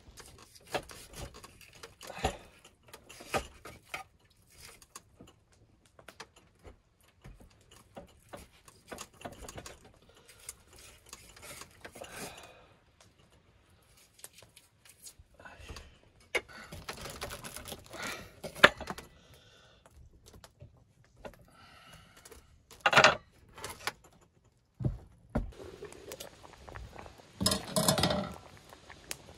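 Cookware and utensils being handled: scattered knocks and clinks with stretches of rustling between them, and two louder clatters, one about two-thirds of the way through and one near the end.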